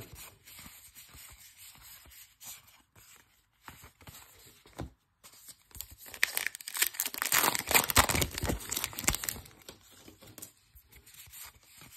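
A 2022 Topps Allen & Ginter trading-card pack wrapper being torn open and crinkled, a loud crackly stretch lasting about three seconds past the middle. Before it, softer rustling and clicking of cards being handled.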